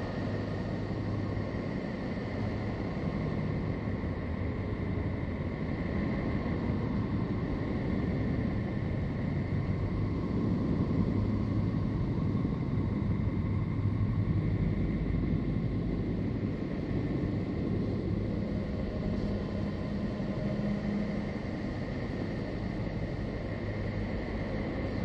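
Steady low rumbling drone with faint held tones over it, slightly louder in the middle: the NASA Voyager recording of Neptune, spacecraft data made audible.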